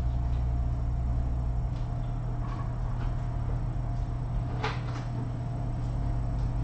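Steady low hum, with a few faint short clicks, the clearest about four and a half seconds in.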